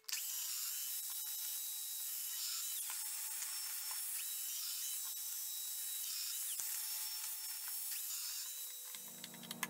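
Festool Domino XL DF 700 EQ joiner running and plunging its oscillating cutter into hardwood to cut a mortise: a steady whine whose pitch dips every second or two as the cutter loads in the wood.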